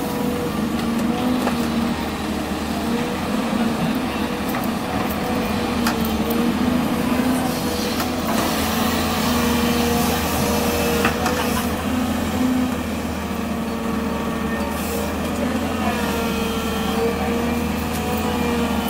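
Excavator's diesel engine running steadily at working speed, its pitch wavering slightly, with a few short knocks.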